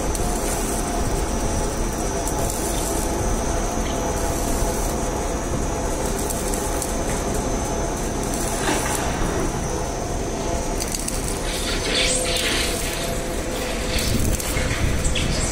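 Rebar cage rolling and welding machine running steadily with a constant hum. From about two-thirds of the way in, crackling hiss from the welding on the rebar joins in.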